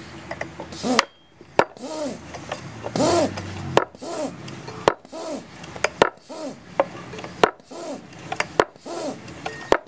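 High-pressure PCP hand pump being stroked steadily, about one stroke a second, pumping air into a small tank. Each stroke gives a sharp knock and then a tone that rises and falls in pitch.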